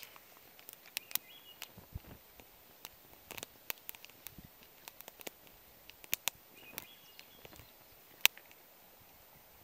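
Small wood fire crackling in a tin-can twig stove: scattered sharp pops and clicks, with one louder snap about eight seconds in. Two faint high chirps come through in the background.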